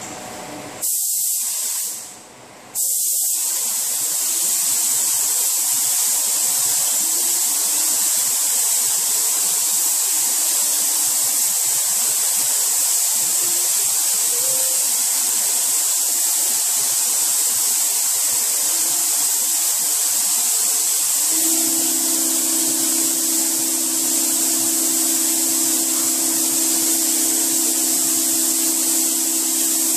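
Paint spray gun hissing as compressed air atomises sealer onto car body panels. The trigger is let off briefly about two seconds in, then held in a long steady pass. A low steady hum comes in about two-thirds of the way through.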